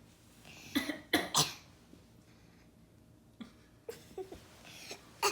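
Coughing: three sharp coughs in quick succession about a second in, then a few softer coughs and throat sounds toward the end.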